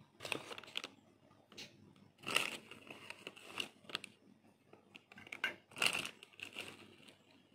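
Plastic sachet of seasoned flour mix crinkling in short bursts as it is shaken out over a bowl of flour, then a metal spoon scraping into the flour in a glass bowl.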